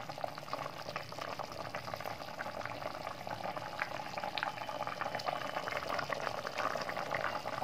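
Potato curry boiling in a kadhai: a steady crackle of many small bubbles popping in the thin gravy.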